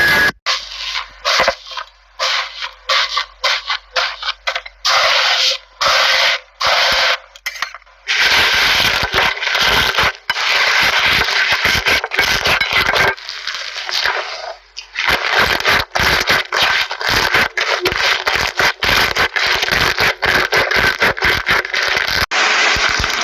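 Slime being squished and worked by hand, a dense run of crackling, popping and sticky clicks with a few short pauses.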